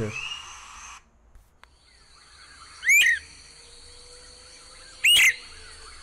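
Great Crested Flycatcher giving its short call: two loud, brief rising whistles about two seconds apart.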